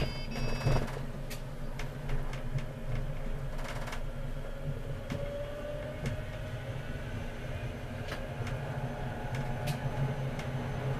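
Tram running along the track, heard from the driver's cab: a steady low rumble of wheels and running gear with scattered clicks and knocks, and a faint whine that rises briefly around the middle.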